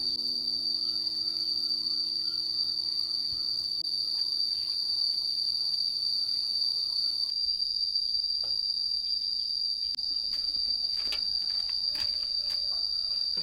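Crickets trilling steadily, one continuous high-pitched tone, with a few faint ticks and taps in the second half.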